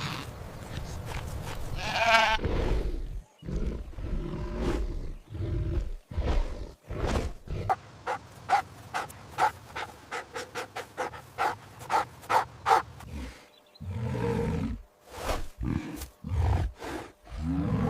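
Recorded farm animal calls: a wavering bleat from a goat or sheep about two seconds in, then a run of short sharp sounds, two or three a second, with more animal calls near the end.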